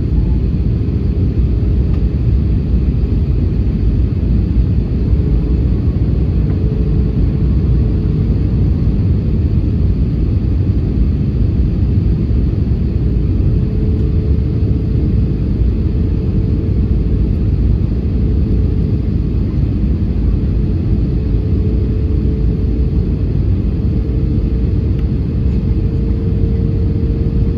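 Cabin noise inside an Airbus A320neo airliner on its landing approach: a loud, steady low rumble of airflow and engines, with a faint hum that edges slightly higher in pitch in the second half.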